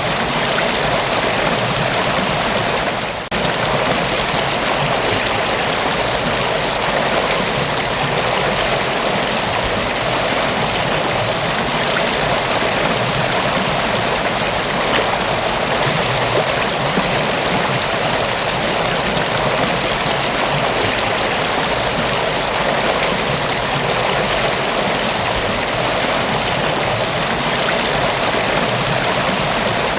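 Mountain waterfall: water rushing and splashing in a steady, unbroken wash, with a brief dip in level about three seconds in.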